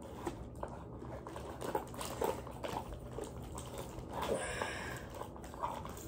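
Faint rustling and small scattered clicks of cardboard and plastic toy packaging being handled and cut with scissors, with a brief louder rustle about four seconds in.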